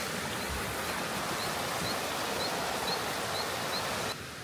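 Water of a rocky stream rushing over small cascades, an even rush of noise, with a faint high chirp repeating about twice a second. The water sound drops abruptly near the end.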